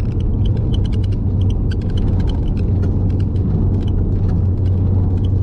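Steady low drone of engine and road noise heard inside a moving BMW 135i's cabin, with frequent small ticks and rattles throughout.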